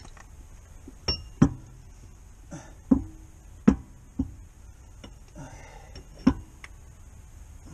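Metal tools clanking against the steel front wheel hub and steering knuckle of a pickup during CV axle reassembly: about six sharp metallic knocks, unevenly spaced, each with a short ring.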